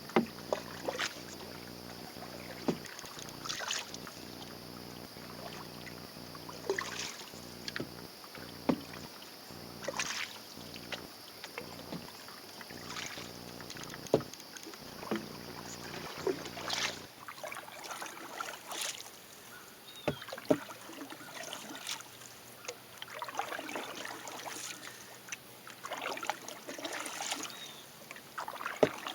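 Paddle strokes in calm water from a small paddled dinghy: the blade dipping, pulling and splashing every two to three seconds, with water dripping off between strokes.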